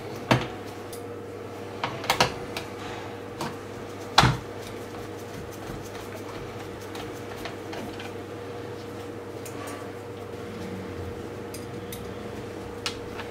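Light metallic clicks and taps, a few in the first four seconds and fainter ones later, as the short bolts holding a chainsaw's recoil starter cover are set back into their holes. A steady low hum runs underneath.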